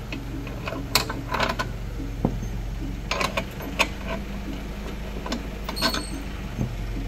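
Scattered metal clicks and clinks from hands handling the steel frame, bracket and bungee strap of an FDF FluidRower water rowing machine, over a steady low hum.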